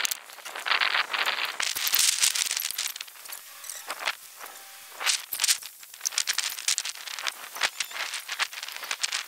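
A steel slide-bolt latch on a trailer door clacking as it is worked, with an irregular run of clicks, knocks and rustling from gear being handled.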